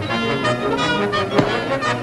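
Orchestral film-score music playing, with one sharp knock a little past halfway through.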